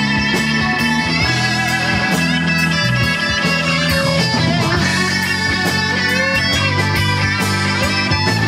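Live rock band playing: a lead on a Telecaster-style electric guitar with bent, wavering notes over bass guitar and drums.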